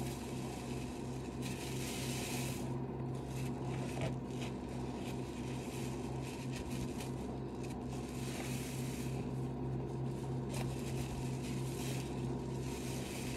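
Rubber-gloved hands squeezing and wringing a suds-soaked foam sponge in Lestoil cleaner: wet squelching and crackling foam that comes and goes in a few swells, the clearest about two, eight and twelve seconds in. Under it runs a steady low hum.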